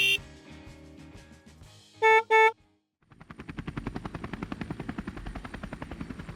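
A music note at the start, then two short car-horn honks about two seconds in. From about three seconds, a helicopter-rotor sound effect: a rapid, even chopping of about ten beats a second.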